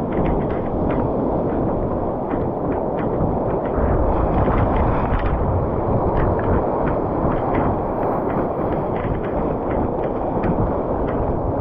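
Sea surf churning and breaking: a dense, steady rushing of water with many small crackling splashes throughout.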